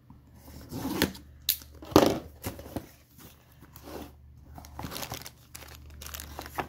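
A cardboard box is opened, with the loudest handling noises about one and two seconds in. Plastic zip bags of small electronic parts then crinkle as they are picked up and handled.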